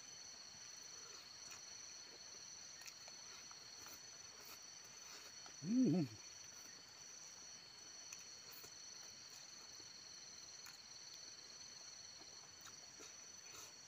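Insects chirring steadily as two unbroken high-pitched tones. About six seconds in, a short, louder hum or grunt from the man eating cuts across them.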